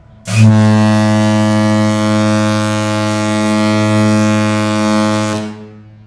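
The Artania cruise ship's classic ship horn sounding one long, deep, steady blast of about five seconds, starting abruptly just after the start and cutting off near the end, with a faint echo trailing after it.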